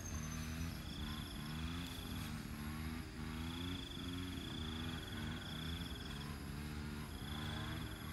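An insect trilling high and shrill in three long phrases of one to three seconds each, over a steady low wavering hum.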